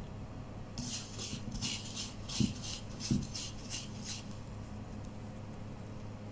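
Pandesal dough ball being rolled in breadcrumbs in a wooden bowl: a run of short rustling strokes, about three a second, that stops about four seconds in, with two soft thumps in the middle. A low steady hum runs underneath.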